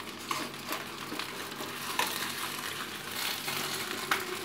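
Oil sizzling in a frying pan under a foil-wrapped whole chicken as it is turned over by hand, with aluminium foil crinkling and a few light crackles; the sizzle grows louder toward the end.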